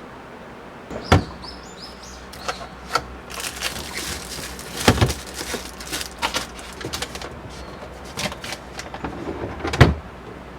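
Kitchen things being handled: three sharp knocks, about a second in, about five seconds in and near the end, with lighter clicks and rattles between.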